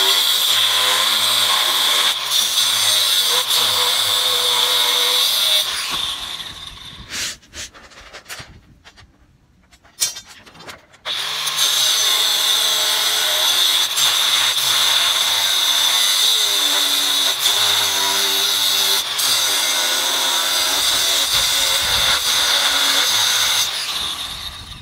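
Angle grinder with a thin abrasive cutting disc cutting through steel rebar, a loud grinding screech with a strong high whine. It winds down about six seconds in and stays quiet for a few seconds, apart from a few clicks. Then it cuts again and runs down near the end.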